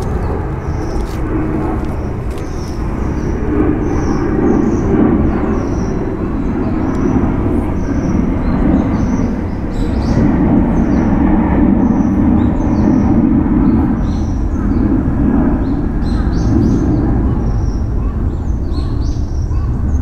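Outdoor ambience: a steady low rumble, with small high bird chirps scattered throughout.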